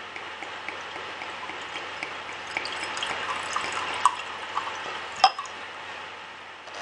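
Homemade hard cider, still fermenting, fizzing and crackling in a glass, with light clicks against the glass and one sharper click about five seconds in.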